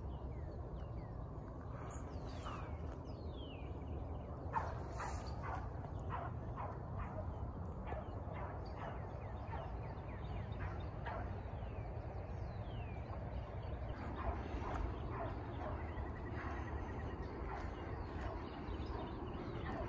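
Young beagle hounds giving tongue on a rabbit track, a run of repeated yelping barks that starts about four seconds in. Under the barking runs a steady low rumble.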